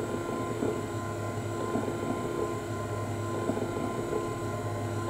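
Electric motor of a motorised mortar-and-pestle mixer (Basti Nirmana Yantra) running steadily at low speed, turning the pestle in a ceramic mortar of honey, rock salt and oil: a steady hum with a few faint ticks.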